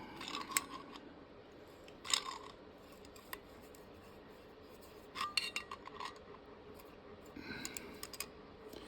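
Small metal parts clinking and clicking as they are handled, in a few scattered bursts with quiet stretches between.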